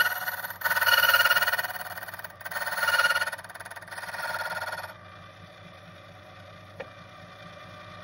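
Cole 4kCC automatic key machine's cutter wheel cutting a key blank: a loud, high, ringing grinding sound that swells and fades in several surges as the notches are cut. It stops suddenly about five seconds in, leaving the electric motor's steady low hum, with a single click near seven seconds.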